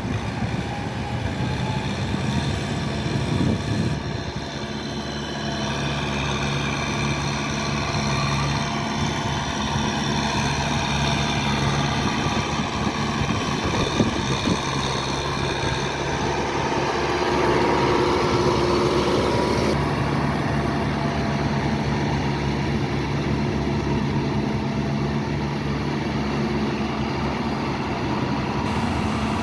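Kubota farm tractor's diesel engine running steadily while working a wet paddy field. Its note changes for a few seconds past the middle, then settles again.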